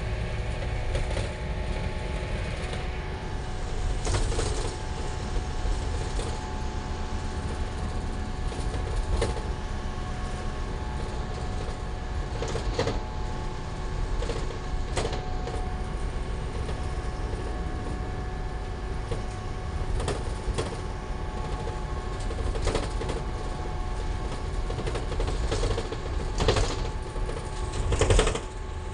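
Cabin noise of a moving Isuzu Almazora minibus: a steady low engine and road rumble with a constant drone. Short rattles and knocks come every few seconds, the loudest near the end.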